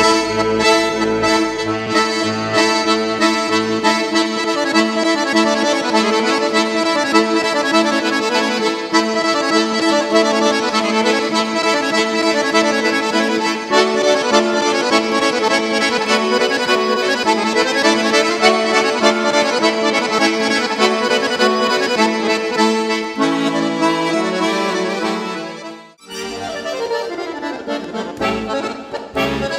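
Two piano accordions playing a folk tune together in sustained chords and melody. About four seconds before the end the tune breaks off and another piece starts.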